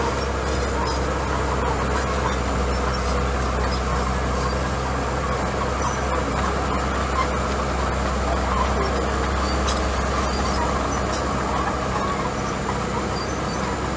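Small crawler bulldozer's diesel engine running steadily as its blade pushes a pile of gravel, with the tracks moving.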